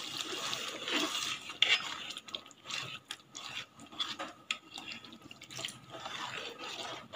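Thick coconut milk poured into a metal pot of ada pradhaman, then a ladle stirring it in, clinking and scraping against the pot at irregular moments.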